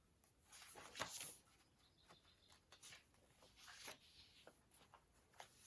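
Faint paper rustling with a few soft clicks, loudest about a second in and again near four seconds in: a picture book's pages being handled and turned.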